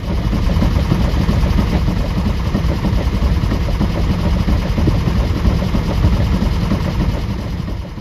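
Volvo Penta MD1 single-cylinder inboard diesel running steadily under way, a fast even throbbing.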